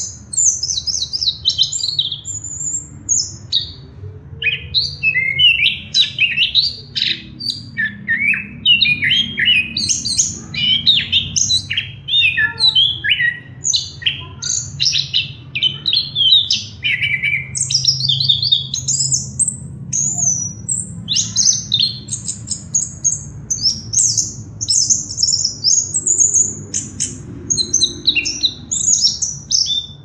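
Chestnut-capped thrush (anis kembang) singing in full voice: a long, unbroken run of rapid, varied high-pitched twittering phrases with hardly a pause.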